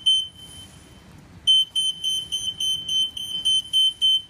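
AS2001 walk-through metal detector gate sounding its alarm, the signal that it has detected metal: a rapid, high-pitched beep about four times a second. The beeping stops about half a second in and starts again about a second and a half in.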